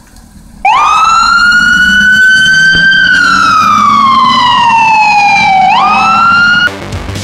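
Ambulance siren switching on and wailing very loudly. Its pitch climbs slowly, falls in a long slow glide, then sweeps quickly back up before it cuts off abruptly near the end.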